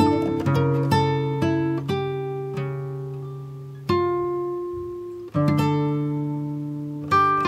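Background music: a solo acoustic guitar playing slow plucked notes and chords, each left to ring and fade, with fuller chords struck about four and five seconds in.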